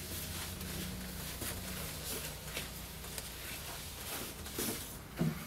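Faint rubbing of a dry cloth buffing mirrored glass, with a few light ticks, over a steady low hum.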